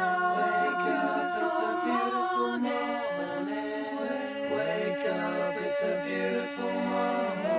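A cappella vocal music: several voices singing together in harmony, holding notes and sliding between them.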